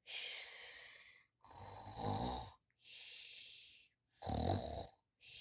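A person making pretend snoring sounds: a hissing in-breath followed by a low rattling snore, twice, with another in-breath starting near the end.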